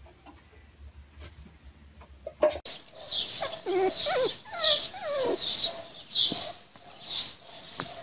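Faint low hum of a front-loading washing machine turning its drum. After a cut, about two and a half seconds in, come animal squeals that fall in pitch and short high chirps repeating about every two-thirds of a second.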